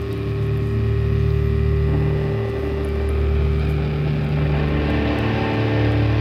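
Grunge rock song with a loud, droning intro of sustained distorted chords and no vocals; the held chord changes about two and a half seconds in and again near five seconds.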